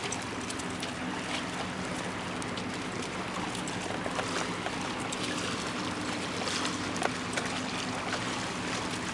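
Steady rush of wind and water at a rocky shoreline, with scattered light clicks and scuffs from feet moving over granite blocks.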